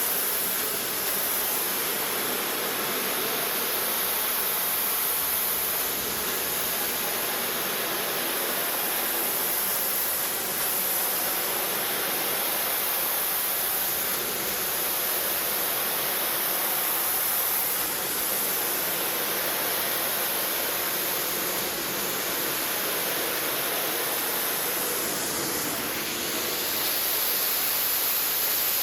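Pressure washer spraying water onto a limestone facade: a steady, unbroken hiss of water spray.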